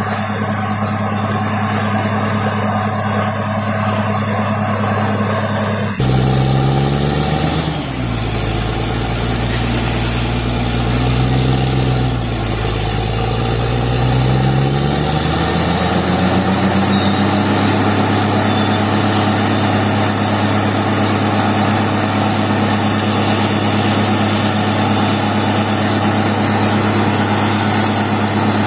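Borewell drilling rig's engine running steadily under load, with a constant hiss of air and cuttings blasting out of the bore. About six seconds in the engine note drops abruptly, sags lower for several seconds, then climbs back up to its steady working speed.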